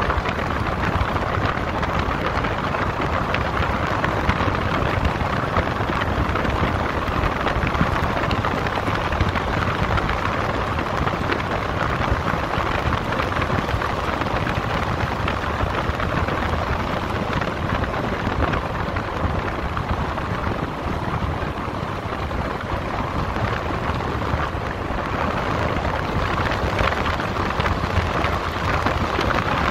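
Tyres of a Toyota Hilux rolling along a gravel road, a steady rush of stones under the tread, mixed with wind on the microphone held outside the moving vehicle.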